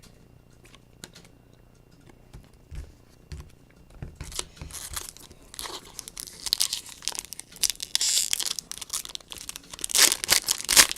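A foil trading-card pack wrapper being torn open and crinkled. It starts about four seconds in and is loudest near the end.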